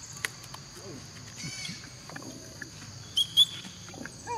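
Steady high-pitched insect drone, with two short, sharp high squeaks about three seconds in.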